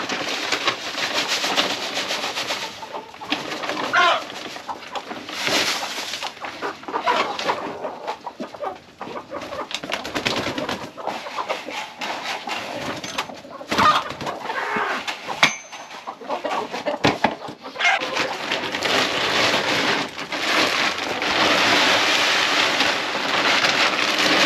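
Chickens clucking around a coop while a paper feed bag rustles and a plastic bucket is handled. Near the end, layer crumbles pour from the bag into the plastic bucket as a steady hiss.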